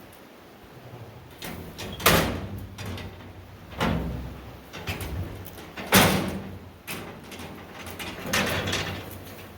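Heavy metal clanging and scraping: four loud bangs about two seconds apart, with rumbling and low ringing between them.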